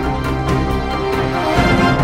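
Background music: a full arrangement of many held tones.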